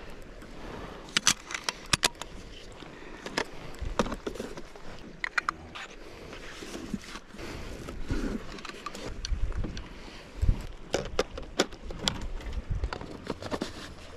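Camera gear being handled in a hard plastic case: scattered clicks, taps and knocks as the case is opened and large telephoto lenses are lifted out and fitted together.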